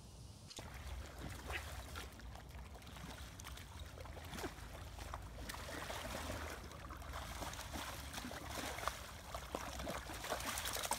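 Wet, irregular splashing and sloshing as a dog rolls and wallows in a muddy puddle, the splashes getting busier near the end.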